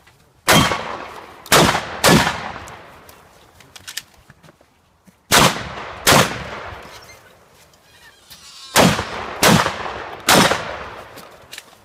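Shotgun fired eight times in three strings: three shots, then two, then three. Each shot is a sharp report followed by a long echoing tail.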